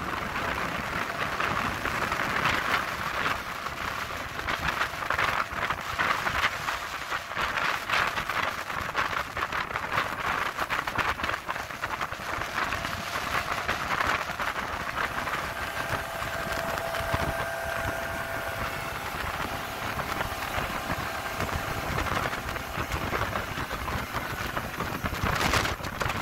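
Motorboat running fast across choppy water: a steady rush of wind and hull spray, dense with small splashes. A faint engine drone shows through in the middle part.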